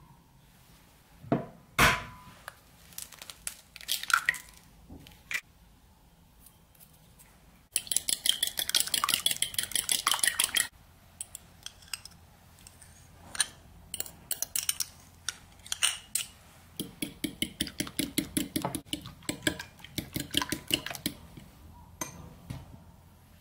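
An egg knocked twice on a bowl rim and cracked, then a spoon beating the egg fast against a ceramic bowl with a dense run of clinks. Later a spoon stirs sour cream into the beaten egg, clinking quickly against the bowl.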